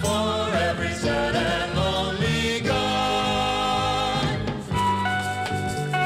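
A 45 rpm vinyl single playing a song: a voice sings with a wavering vibrato over a band, then moves into a held chord about two and a half seconds in, and the notes change near the end.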